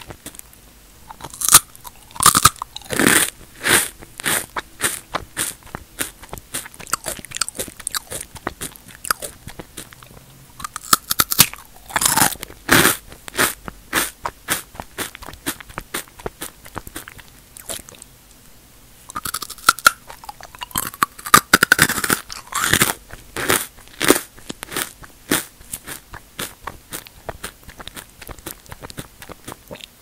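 Close-miked crunching and chewing of crisp square potato and sweet potato chips in the mouth: sharp crackling crunches in three loud bouts (about two seconds in, around the middle, and two-thirds through), with softer chewing clicks between them.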